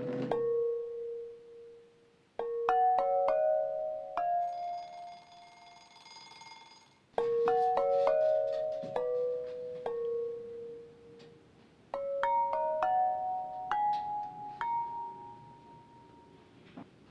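Tinkling music-box melody: three short phrases of bell-like notes that ring and fade away, starting about two, seven and twelve seconds in, with a soft shimmering chord between the first two phrases.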